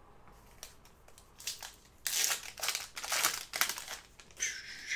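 Plastic-foil wrapper of a trading card pack crinkling as it is torn open and handled, with a dense run of crinkles starting about two seconds in and lasting around two seconds. A few faint clicks come before it, and a shorter rustle comes near the end.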